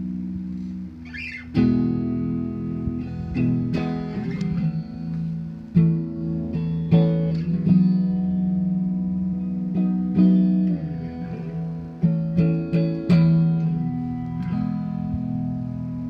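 Electric guitar played through a Marshall JVM410H amp head: a slow lead line of picked notes left to ring, with some bent notes about ten seconds in.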